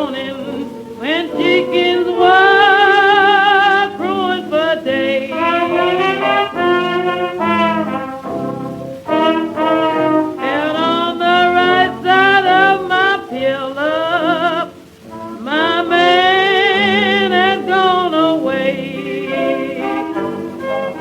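A 1926 78 rpm blues record playing: a female blues singer with a small jazz band, brass horn lines and vibrato-laden sustained notes, the sound cut off above about 4 kHz.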